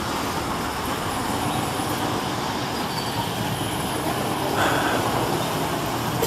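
Steady street traffic noise: motor vehicles running and passing close by, with a brief higher-pitched squeal about four and a half seconds in.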